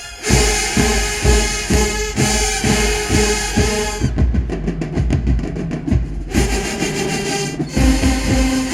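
HBCU marching band playing loud: a full brass entry with sustained chords over steady drum strokes, the high horns dropping out for about two seconds in the middle while the low brass and drums carry on, then the full band coming back in.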